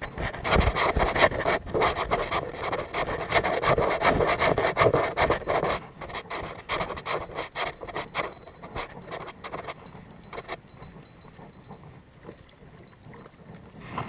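Close rough rubbing and scraping with many small knocks, loudest for the first six seconds, then weaker and dying away after about ten seconds.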